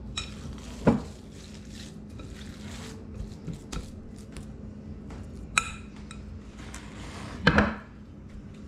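Hands mixing raw ground-beef meatloaf mixture in a glass bowl, with a few sharp clinks against the glass and a louder clatter near the end.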